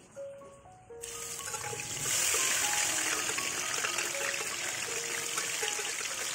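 Ground chilli paste sizzling loudly as it is tipped from a blender jar into hot oil in a wok. The hiss starts about a second in and jumps in strength about two seconds in.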